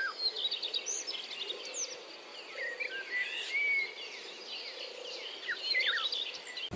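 Several small birds chirping and twittering, many short rising and falling calls overlapping.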